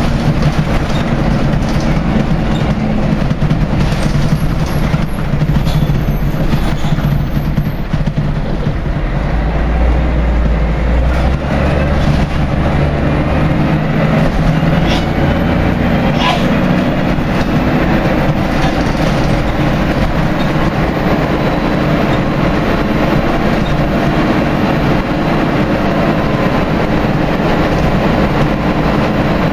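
Inside a Scania L113CRL single-deck bus on the move: the rear-mounted 11-litre six-cylinder diesel running under load with body and window rattle, its note changing pitch several times and going low and heavy about ten seconds in. The bus is one whose gearbox the uploader says is slipping gears.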